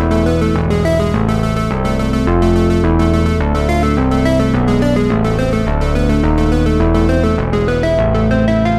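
Background music: electronic keyboard and synthesizer chords with a steady beat.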